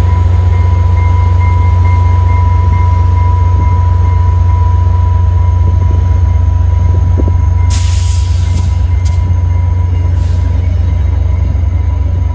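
VIA Rail passenger train of LRC coaches behind an F40PH diesel locomotive rolling past close by: a loud, steady low rumble with a thin steady high tone over it. A brief sharp hiss comes about eight seconds in, and a shorter one two seconds later.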